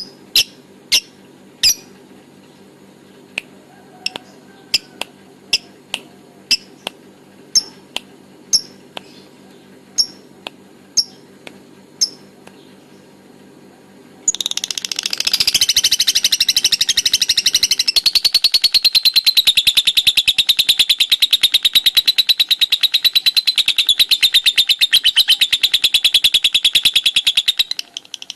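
Lovebird giving single sharp chirps about once a second, then about halfway through breaking into a loud, rapid chattering trill, the lovebird's 'ngekek', held without a break for some fourteen seconds. This long, unbroken chatter is what fanciers call a 'konslet' lovebird.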